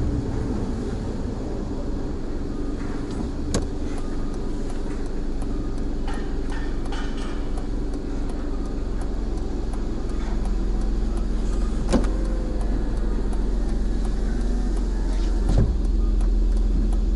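Steady low hum of a car's engine and cabin, heard from inside while the car sits idling at an intersection, with a few faint sharp clicks.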